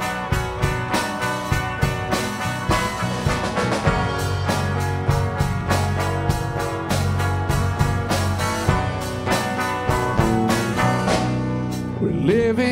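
Instrumental break of a country-style worship song: a band playing sustained chords over a steady drum-kit beat.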